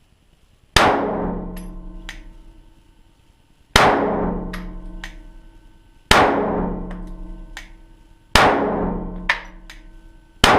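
Glock 17 Gen 1 9mm pistol fired five times in slow, deliberate succession, about two to three seconds between shots, each shot followed by a long echo dying away.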